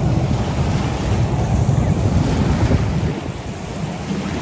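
Wind buffeting the microphone in a gusty rumble, easing a little about three seconds in.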